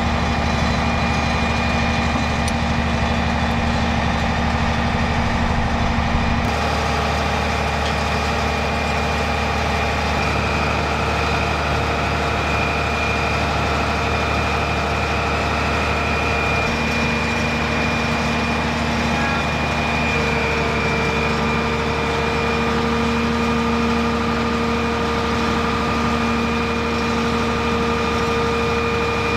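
Heavy military truck's diesel engine idling steadily, with a few steady high whining tones layered over the low hum that shift now and then.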